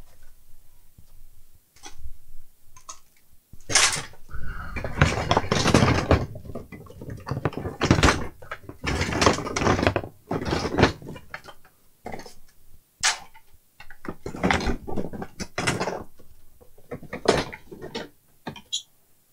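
Rummaging through stored parts: repeated irregular clattering, scraping and rustling, starting about three and a half seconds in and dying away near the end.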